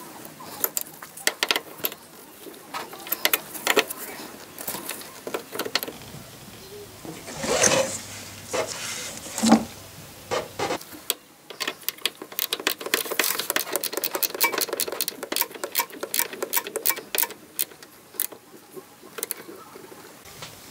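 Ratcheting spanner clicking in quick runs as it tightens a mounting nut on a clutch master cylinder, after a first half of scattered metal clicks and knocks from handling the parts.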